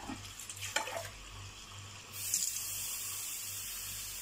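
Kitchen tap turned on about two seconds in and running steadily, filling a measuring cup with water. A few light knocks are heard before it.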